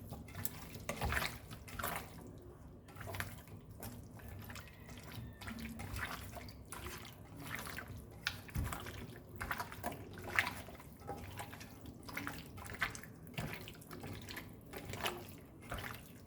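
Raw chicken pieces being mixed through a wet curd-and-spice marinade, giving irregular wet squishing sounds.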